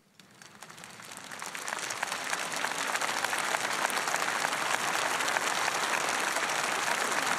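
A large crowd applauding, starting from silence and swelling over about two seconds into steady, sustained applause.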